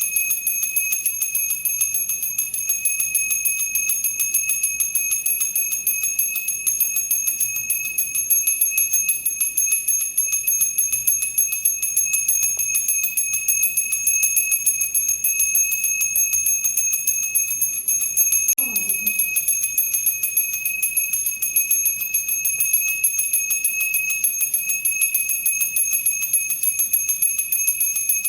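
Temple bell rung over and over in quick, even strokes, its high ringing tones never dying away between strikes.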